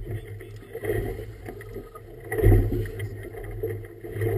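Choppy water slapping and splashing against the hull of a small boat, with wind rumbling on the microphone; the biggest splash comes about halfway through.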